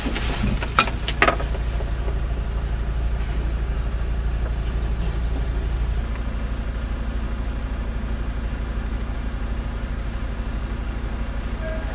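Engine and road noise heard from inside a moving car: a steady low rumble, with a few sharp knocks about a second in.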